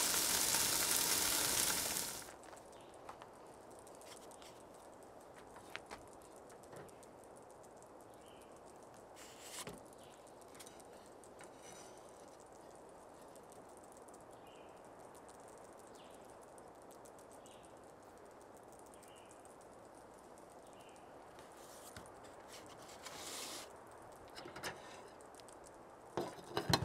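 Burger patties sizzling loudly in a frying pan on a propane camp stove, stopping abruptly about two seconds in. After that, quiet outdoor background with faint high chirps every second or so and a few light clinks of a spatula and plate near the end.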